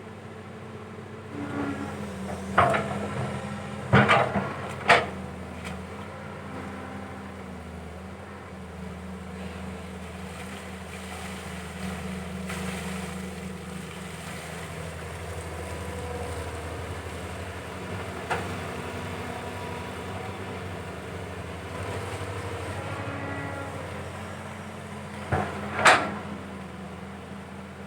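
Caterpillar 320 hydraulic excavator's diesel engine running steadily, its note swelling and easing as the hydraulics work. Sharp knocks from the machine's digging gear ring out in a cluster a few seconds in, once in the middle, and twice near the end.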